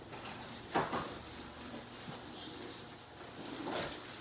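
Plastic wrapping rustling and styrofoam packing scraping as a telescope tube is unwrapped and lifted out of its foam box, with louder rustles about a second in and again near the end.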